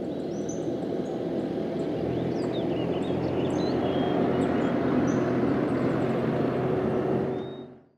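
John Deere utility tractor's diesel engine running steadily as it moves a wooden box blind on its front loader, with songbirds chirping over it; the sound fades out near the end.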